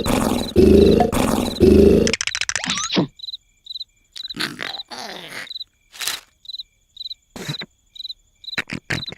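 Loud, exaggerated cartoon snoring: heavy rasping snores in quick succession that stop abruptly about two seconds in. Then a cricket chirps steadily, a few times a second, broken by short cartoon vocal noises and sound effects.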